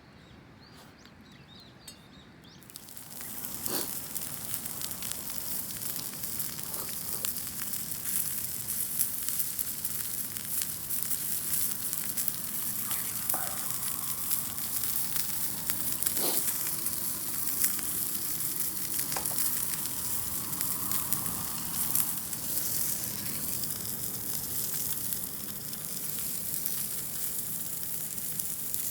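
Pork belly meat rolls frying in a hot pan over a wood fire. The sizzling starts suddenly about three seconds in and keeps up a steady spitting hiss, with a few light clicks scattered through it.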